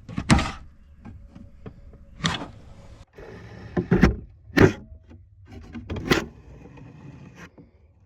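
Wooden RV drawer being pushed shut and pulled open several times, its new push latch catching with sharp clacks and the drawer sliding in its runners.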